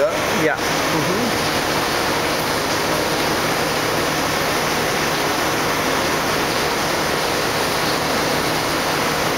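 Campbell vertical CNC grinder running under flood coolant: a loud, steady rush of coolant spray and grinding with a faint steady hum underneath. A couple of clicks come right at the start.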